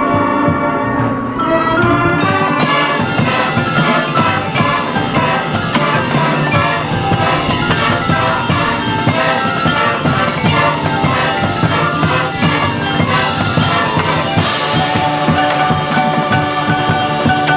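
High school marching band playing, with mallet percussion (marimba, xylophone, glockenspiel) and drums prominent. The drums and cymbals fill in about two and a half seconds in.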